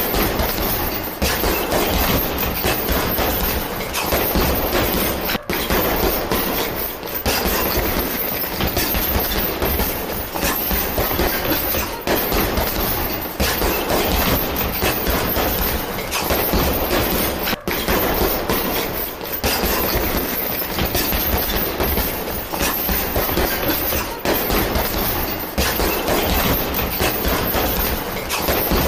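Gloved punches landing in rapid flurries on a hanging heavy bag, the thuds running together into a dense, continuous rattling clatter, broken twice by a momentary pause.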